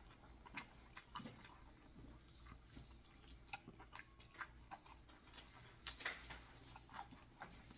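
Faint close-up chewing and biting of crispy fried chicken: scattered small crunches and wet mouth clicks, with a sharper crunch about six seconds in.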